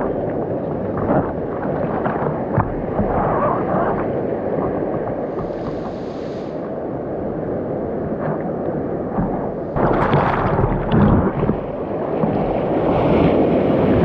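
Ocean surf and water sloshing in the shore break, with wind on the microphone. The water noise surges louder about ten seconds in and again near the end.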